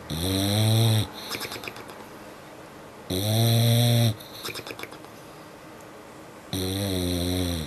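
Sleeping dog snoring: three loud, pitched snores about a second long come roughly every three seconds, each rising then falling slightly in pitch, with a softer rattling breath between them.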